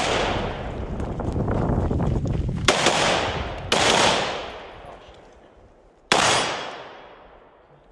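Separate gunshots: a rifle at first, then a single pistol shot about six seconds in. Each shot trails off in a long echo among the trees.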